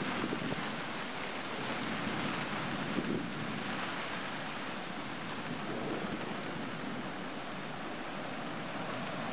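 Thunderstorm: steady heavy rain hiss with wind, and low rumbles swelling every few seconds.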